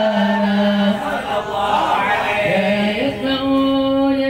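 A man's voice chanting an Arabic maulid verse in a slow, drawn-out melody: a long held note, a winding run in the middle, then another long, slightly higher held note about three seconds in.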